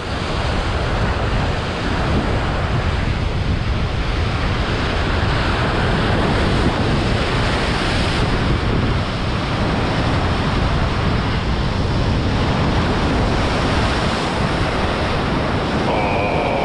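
Sea surf washing against the shore, with wind buffeting the microphone in a steady low rumble.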